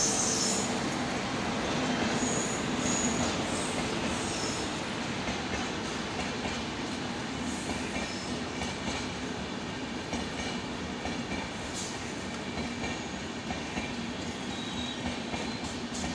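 Indian Railways train running on the rails, a steady rumble of wheels and carriages, with faint high wheel squeals in the first few seconds.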